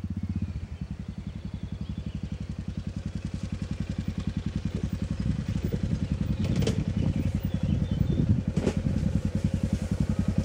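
Yamaha XT660Z Ténéré's single-cylinder four-stroke engine running with an even, rapid thump as the motorcycle approaches on a dirt track, growing steadily louder. Two sharp clicks stand out, about two-thirds of the way in and again two seconds later.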